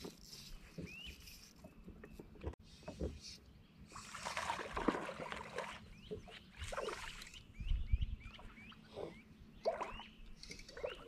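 Water splashing and sloshing around a small fishing boat, with a few dull knocks. Near the end come a run of short rising chirps.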